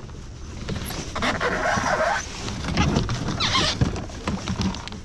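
Scraping and creaking of something being handled, in short rasping stretches about a second in and again just past the middle, with small knocks and clicks between.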